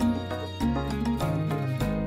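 Instrumental background music: a melody over a bass line that moves to a new note about every half second.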